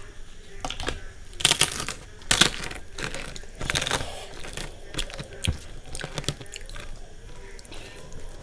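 Fried papad (poppadom) crackling as it is broken up by hand, with a few sharp crunches in the first half. After that comes the softer sound of fingers mixing soft khichuri on a steel plate.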